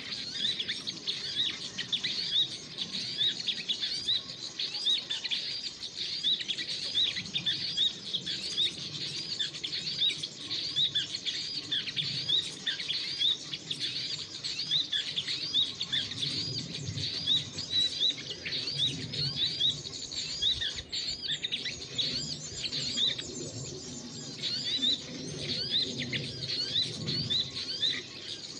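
Small birds chirping continuously in rapid, high, short notes, several a second.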